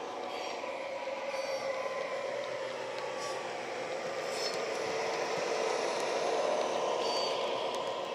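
Model CIE A Class diesel locomotive's DCC sound decoder playing a running diesel engine through the model's small onboard speaker, mixed with its wheels rolling on the track. It grows louder as the model draws close, peaking about six seconds in, then eases off.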